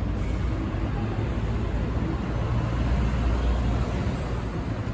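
Steady low rumble of road traffic, swelling slightly for a moment about three seconds in.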